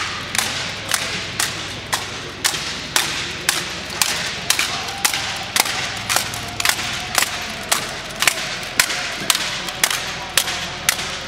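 Rifle drill with M1 Garand rifles: hands slapping the rifles in unison, a sharp echoing crack about twice a second at an even pace.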